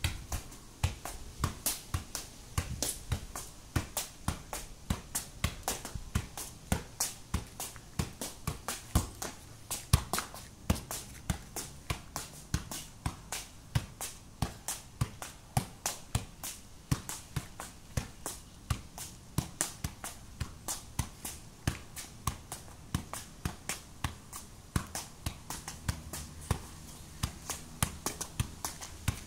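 Football being juggled in the air, tapped up by the foot and leg again and again in a steady run of short taps, about two to three a second.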